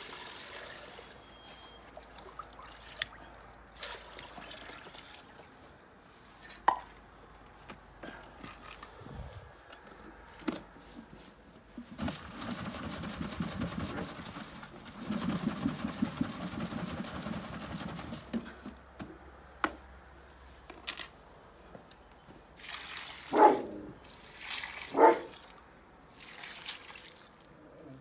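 Chicken broth being scooped from a large steel stockpot and poured into metal pots of dry dog food, with dribbling and splashing liquid and scattered sharp clinks of metal on metal. Near the end a dog barks twice, loudly.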